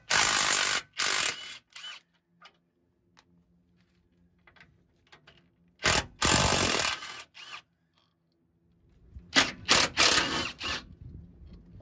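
Hand socket ratchet clicking in quick runs, three near the start, one in the middle and several short ones near the end, as the 17 mm sway bar mount bolts are loosened.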